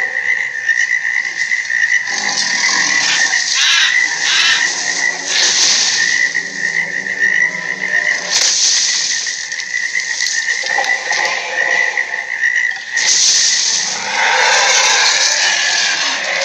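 Giant ape sound effects: a run of rough, noisy calls of a second or two each, some with a low pitched core, over a steady high whine.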